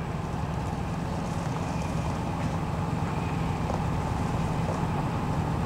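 Class 03 diesel shunter's Gardner 8L3 engine running with a steady low drone, growing gradually louder.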